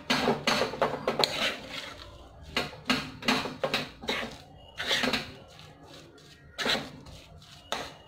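A cooking utensil scraping and knocking against a white-coated nonstick pan as boiled potatoes are stirred and mashed into fried spices. The strokes come irregularly, in short runs with brief pauses.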